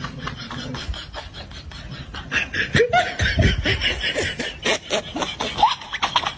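People laughing off-camera in quick, choppy bursts of snickering, louder from about halfway through.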